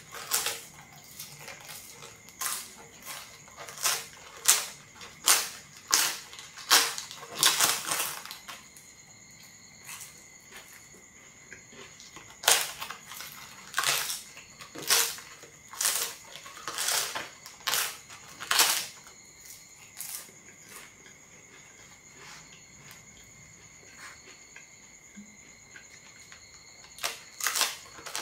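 Close-up crunching of a large, thin, crispy fried wafer being bitten and chewed: rapid sharp crackling snaps in bursts. A quiet pause comes about two-thirds of the way through, then a few more crunches near the end.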